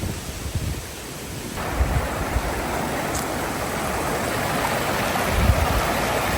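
Steady rush of flowing water, a creek or falls, coming in suddenly about a second and a half in, with wind buffeting the microphone underneath.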